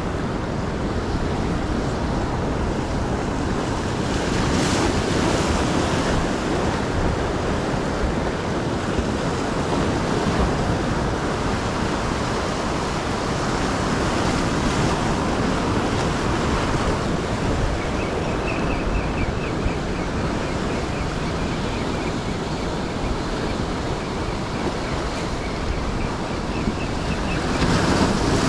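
Ocean surf breaking and washing on the shore, swelling and easing every few seconds, with wind rumbling on the microphone.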